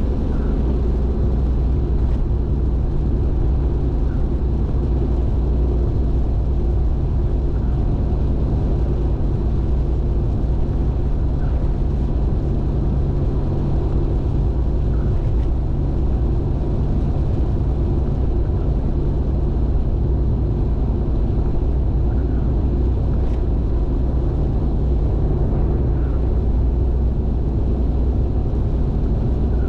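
Car driving at expressway speed, picked up by an in-car camera: a steady low rumble of tyre and engine noise that stays even throughout.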